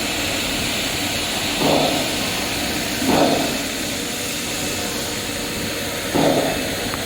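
Endless diamond wire loop saw running steadily with a constant rushing hiss, its water coolant flowing. Three short, louder, lower-pitched whooshes stand out over it: about one and a half seconds in, about three seconds in, and just after six seconds in.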